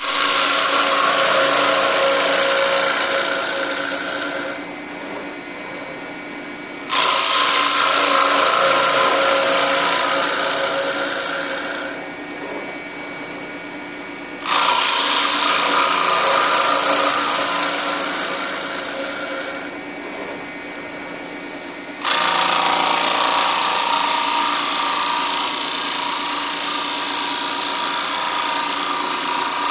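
Woodworking power tool running and cutting, loud with steady pitched tones over a broad rushing noise. The sound jumps suddenly to full loudness four times, about every seven seconds, and eases off gradually after each jump.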